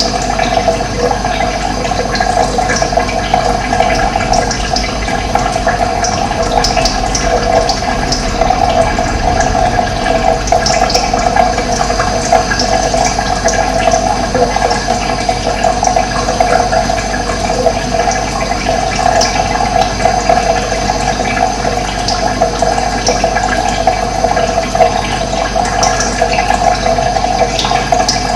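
Running water: a steady rushing flow, with short high bird calls now and then above it.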